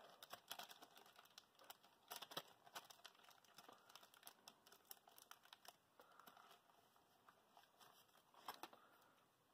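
Near silence with faint rustling and scattered light clicks as hands pick up a swab and small airbrush parts on a paper-towel-covered bench.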